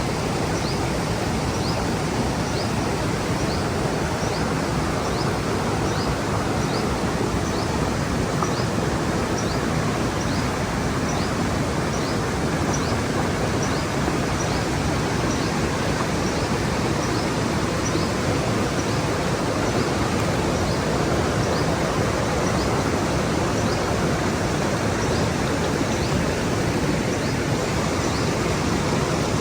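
Mountain stream running steadily over rocks. A bird repeats a short, high chirp about one to two times a second, fading out after about twenty seconds.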